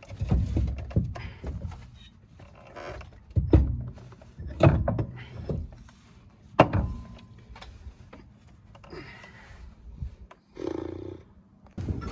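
Irregular heavy thunks and knocks of tools and metal parts being worked under a car while the rear axles and a seized driveshaft are taken off to remove the differential.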